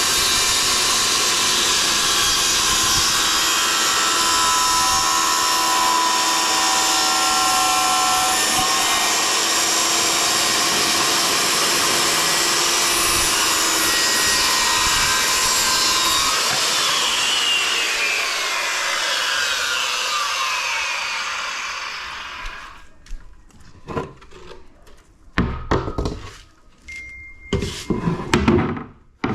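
Power saw cutting through plywood, running steadily. About two-thirds of the way in it is switched off, and its whine falls over several seconds as the motor winds down. A few knocks and rubs of the board being handled follow near the end.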